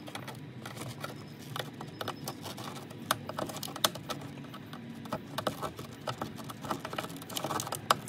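Irregular plastic clicking and rattling from a car's wiring harness and its plastic push-in mounting clips being pried loose and handled with a pry tool, with a low steady hum underneath.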